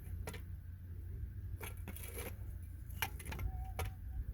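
Scattered light metallic clicks and clinks from a Ford Fiesta steering column and its parts being handled and lifted out.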